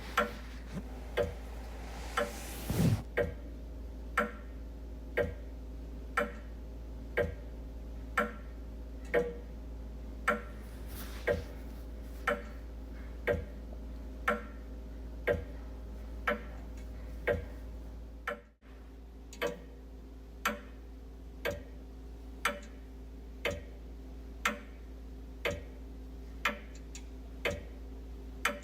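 Wall clock ticking steadily, about one tick a second, over a constant low hum. A brief louder noise sounds about three seconds in, and the sound dips out for a moment about two-thirds of the way through.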